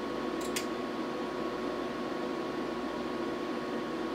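Steady whir of a benchtop digital oscilloscope's cooling fan running, with a thin steady whine in it.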